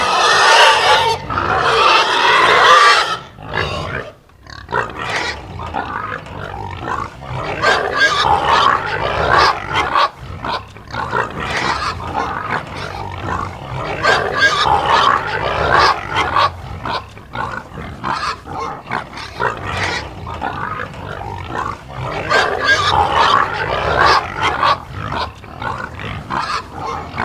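Domestic pig grunting continuously in a rough, pulsing stream. A louder, harsher call fills the first three seconds, followed by a brief lull.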